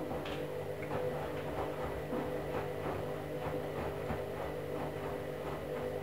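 Candy front-loading washing machine tumbling its drum during the wash phase. The motor gives a steady hum of several tones, over a fast, regular patter from the tumbling load.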